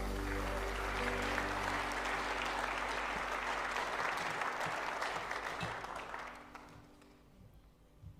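Audience applauding as the last held chord of the accompaniment fades out; the clapping dies away about six to seven seconds in.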